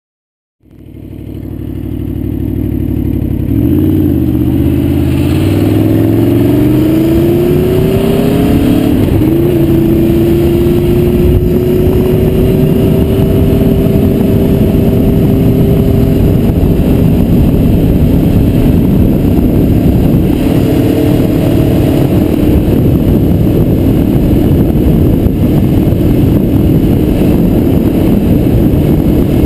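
Aprilia Tuono V4R's 65-degree V4 engine under way, fading in about half a second in. Its pitch rises and falls several times in the first eight or nine seconds, then holds a steady cruising note, under a heavy rush of wind noise.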